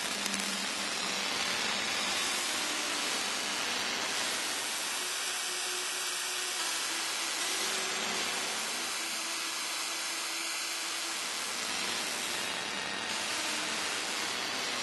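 Live electronic sound synthesized in real time by Geecos, wooden gesture-control surfaces, as hands rub and brush across the wood: a dense, steady hissing noise texture.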